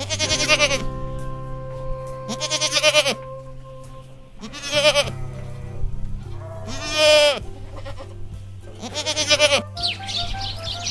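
Young goat kid bleating five times, each a wavering cry under a second long, over steady background music. Bird chirps begin near the end.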